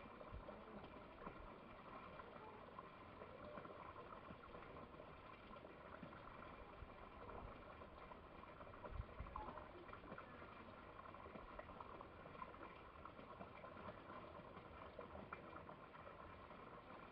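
Near silence: a faint, steady, crackly background hiss, with a soft low thump about nine seconds in.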